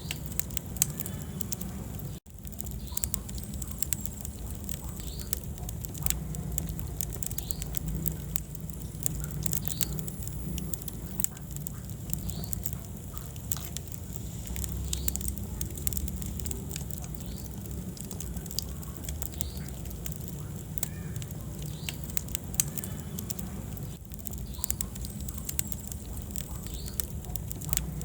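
Wood fire burning in a fireplace: irregular sharp crackles and pops over a low, steady rumble of flame, with a momentary dropout about two seconds in.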